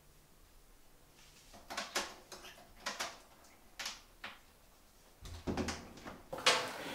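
Key turning in a door lock, a few sharp metallic clicks spaced about a second apart, then a dull thump and a loud click of the handle and latch as the door is pulled open near the end.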